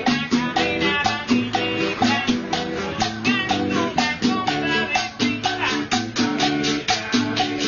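Background Cuban music with percussion and a steady quick beat.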